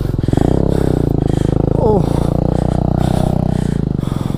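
Motorcycle engine revving hard under load as the bike is worked over rocky off-road ground where it had got stuck. The revs fall away near the end.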